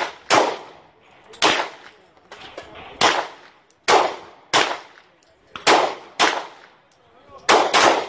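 GSG 1911 pistol in .22 LR firing about ten shots: sharp cracks at an uneven pace, some in quick pairs and others a second or so apart.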